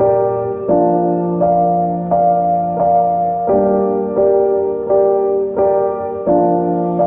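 Background music: a piano-like keyboard playing a gentle melody of evenly spaced notes, about one and a half a second.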